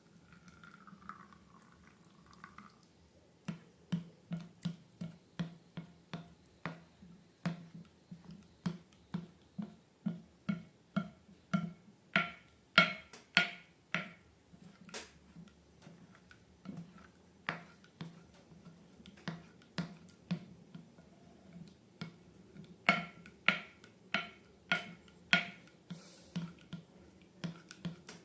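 Slime being pressed and worked by hand, giving short sticky pops and clicks about two a second. The pops are louder in two stretches, around the middle and near the end.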